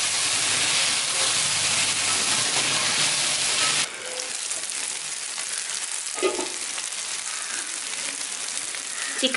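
Chicken pieces sizzling in oil in a pan while being stirred with a wooden spatula, the juices the chicken has released cooking off. About four seconds in the sizzle drops suddenly to a softer hiss.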